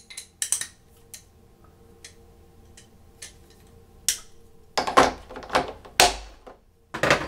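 Small metal hand tools being handled and set into a hard plastic case insert: a few light clicks at first, then a cluster of louder knocks and rattles in the second half.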